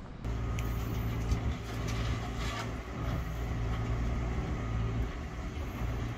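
A motor running steadily with a low, even hum. Fainter scrubbing and splashing noises sit over it while a scooter is washed by hand.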